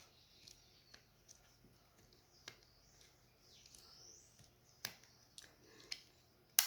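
Small metal clicks of a Swiss Army knife's freshly oiled bottle opener being worked open and shut, scattered through, with the sharpest click near the end as it snaps into place.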